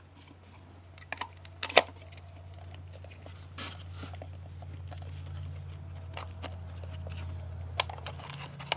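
Plastic clicks and knocks of a solar flood light's housing and battery pack being handled and pressed back together, a few scattered taps with the sharpest near two seconds in and near the end. Under them a steady low hum runs on and stops just at the end.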